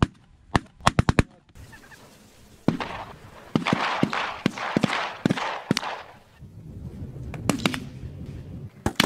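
Several shotguns firing at incoming ducks over decoys: a quick string of shots about half a second in, more shots every half second or so through the middle, and another rapid burst at the end. Waterfowl calling makes a noisy wash under the middle shots.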